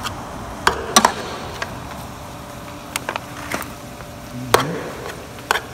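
Metal serving spoon clinking and scraping against a large aluminium stockpot and a foil pan while cornbread is scooped and mixed into sausage stuffing: several sharp, irregularly spaced clinks.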